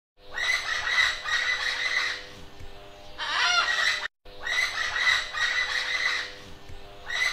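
Birds calling in a dense chorus of clucks and squawks, with one rising call about three seconds in. After a brief dropout the same stretch repeats almost exactly, as a looped recording would.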